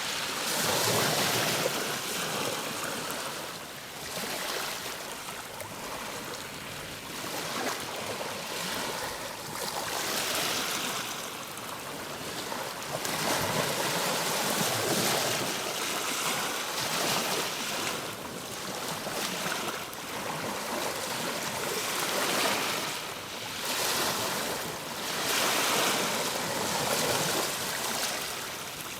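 Ocean surf: waves breaking and washing in, the rush swelling and easing every few seconds.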